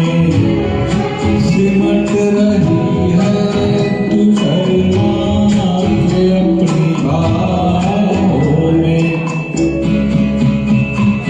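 Karaoke backing track of a Hindi film song playing, with singing over the music.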